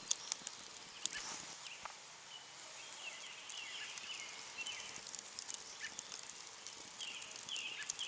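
Faint scattered crackles and pops from a freshly lit wood fire, with an animal's high, short, falling chirps repeating over it.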